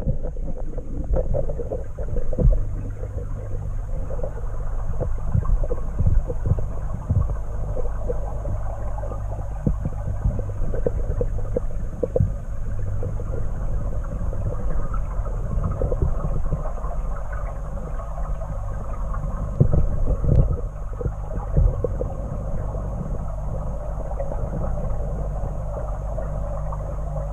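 Steady low hum with scattered short knocks and clicks, as picked up by a camera submerged in koi pond water.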